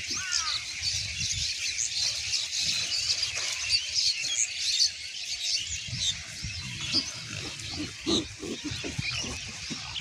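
Pigs grunting as they forage, most often in the second half, over steady high chirping from many birds.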